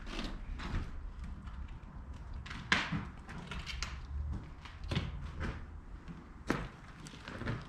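Footsteps and scuffs on a debris-strewn floor, coming at an uneven walking pace, with two sharper knocks: one nearly three seconds in and one later on.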